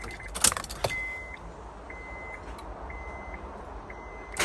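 A few sharp clicks, then the Honda S2000's dashboard warning chime beeping steadily about once a second, four beeps. Near the end the starter kicks in and cranks the engine, now that a new battery has replaced the dead one that only let it click.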